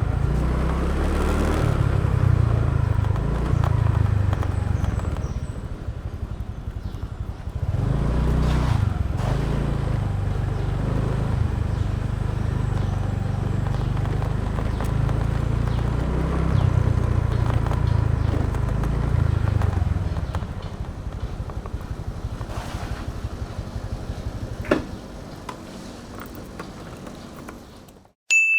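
Motorbike engine running under way with road and wind noise, its note shifting up and down; about twenty seconds in it drops to a quieter low running. A single sharp click comes a few seconds later, then the sound cuts off and a bright ding rings out.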